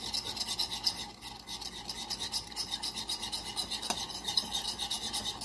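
Metal fork whisking a honey-mustard and olive-oil vinaigrette in a bowl, scraping against the bowl in quick, regular strokes.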